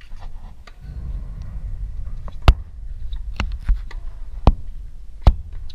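Tennis ball being struck and bouncing in a rally: about five sharp pops over a few seconds, over a low steady rumble.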